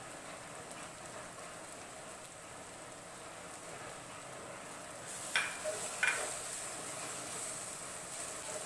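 Ground spice paste with onions and green chillies sizzling in an earthenware pot while being stirred with a wooden spatula, fried until its raw smell is gone. The sizzle grows louder about five seconds in, with two brief knocks close together.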